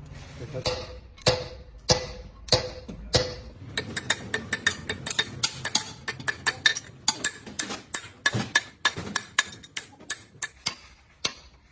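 A series of sharp metallic taps from hand tools on engine parts: evenly spaced, a little under twice a second, with a short ring at first, then faster and irregular.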